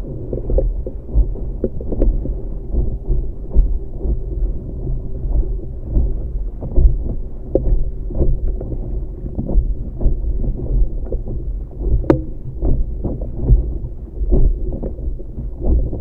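Wind rumbling on the microphone and water splashing against the hull of a Tiwal 3 inflatable sailing dinghy under way, with frequent short slaps throughout.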